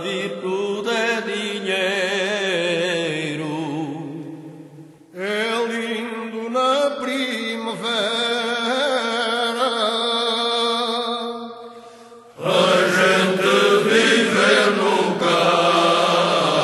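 Cante alentejano: unaccompanied voices singing in slow, drawn-out phrases with wavering held notes. The singing breaks off briefly about five seconds in and again about twelve seconds in, and the last phrase comes in louder and fuller.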